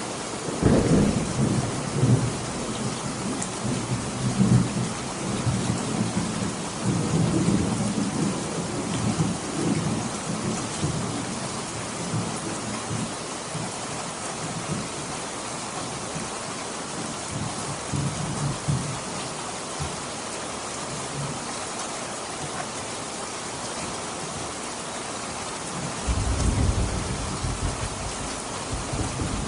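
Steady rain with rolling thunder. A long low rumble builds about half a second in and dies away over some twenty seconds, and a new rumble starts near the end.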